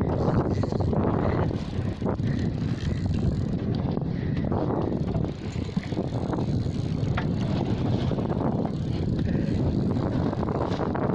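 Steady wind buffeting the microphone aboard a fishing boat at sea, a continuous low rumble.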